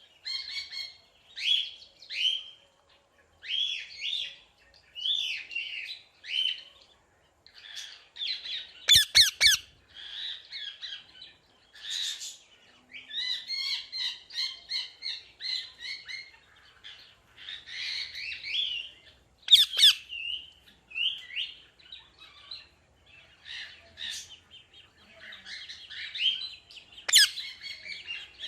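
Parrot chirping and squawking in a steady run of short calls, with a few sharp, louder squawks scattered through.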